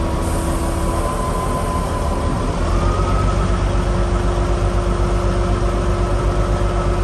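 Volvo A40E articulated dump truck's diesel engine running with a steady whine while the dump body is raised hydraulically. About two and a half seconds in, the engine speeds up, getting louder and deeper, and the whine steps up in pitch.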